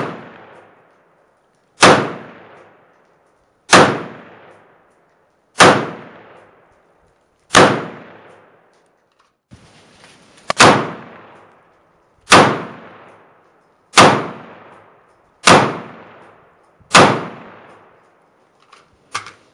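AR-15 rifle (Smith & Wesson M&P15T in .223/5.56 with a Troy Industries Medieval muzzle brake) firing single shots, each followed by an echoing tail in the covered range. There are two strings of five shots, about two seconds apart, with a short break between the strings midway, and a few faint clicks near the end.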